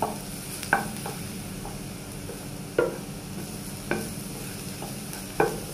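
Minced garlic frying quietly in a non-stick pan as a plastic slotted spatula stirs it, knocking and scraping on the pan five times at uneven intervals, over a steady low hum.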